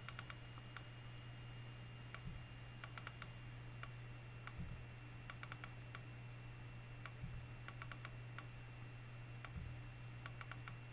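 Computer keyboard typing and mouse clicks in short, irregular bursts, faint, over a steady low hum.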